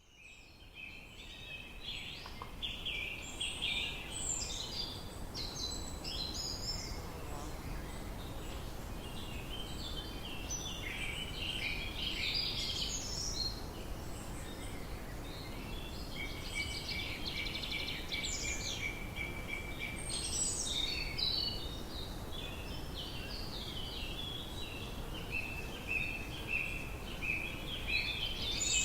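Many birds chirping and twittering at once in a dense chorus, over a steady low background rumble. The sound fades in at the very start.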